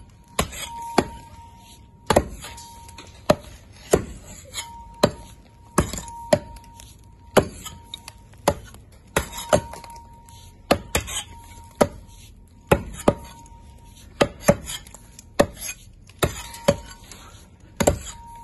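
Steel pick and hammer striking a sandstone block. There are irregular hard blows, about one to two a second, and many of them are followed by a short metallic ring from the tool head.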